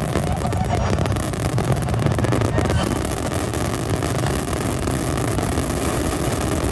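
Fireworks finale barrage heard close up: many shells bursting so fast that they merge into one steady, deep rumble.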